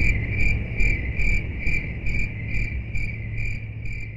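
Insect chirping steadily, a little over two chirps a second, over a low hum, fading away near the end.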